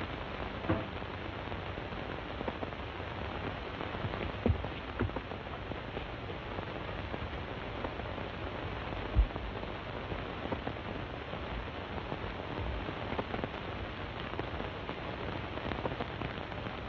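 Steady hiss and crackle of a worn 1930s optical film soundtrack, with a few louder pops scattered through it.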